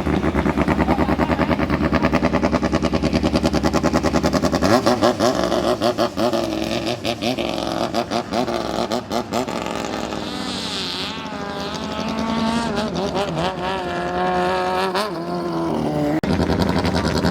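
Racing speedboat engine running loud with rapid, rough firing pulses, then revving, its pitch rising and falling over and over.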